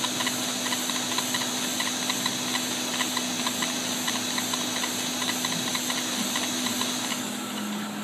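60-watt LaserPro II laser engraver at work on glass: a steady hum and hiss with a regular tick about three times a second. About seven seconds in, the hiss and the ticking drop away, leaving the low hum.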